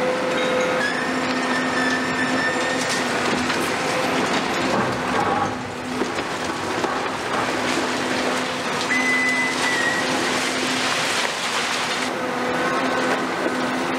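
Caterpillar 390F demolition excavator at work, its Cat C18 diesel engine running under load with a steady hydraulic hum, while broken concrete and rebar clatter and crunch. Brief high metallic squeals, the clearest about nine seconds in.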